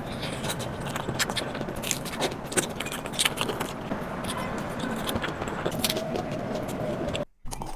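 Close-up crunching and chewing of a crispy batter-coated mozzarella corn dog, with many sharp crackles. The sound drops out briefly near the end.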